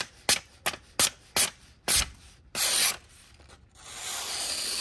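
A run of sharp clicks about three a second, then the thin blade of a TRM Atom folding knife slicing through a sheet of paper: a short hiss about two and a half seconds in, then a longer, even hiss from about four seconds in. The cut sounds beautiful and consistent, the sign of a clean, sharp edge.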